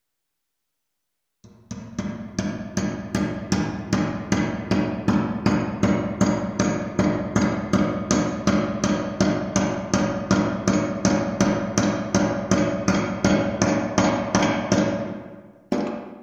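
Steady rhythmic hammering on ringing metal, about three blows a second, starting after a second and a half of silence and fading out near the end.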